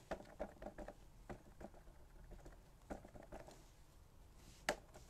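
Stamparatus stamp-positioning tool being handled as the card is moved along a notch for the next impression: a run of faint plastic taps and clicks, then one sharper click near the end.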